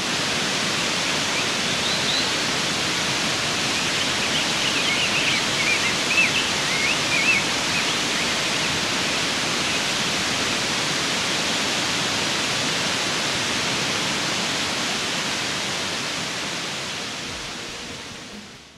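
Tomara Waterfall's falling water rushing in a steady, full hiss, with a few faint high chirps a few seconds in; it fades out near the end.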